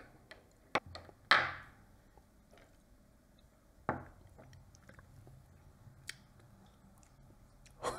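A metal spoon clinks lightly against a small glass cup a few times as coffee is stirred, followed by a couple of soft sipping sounds.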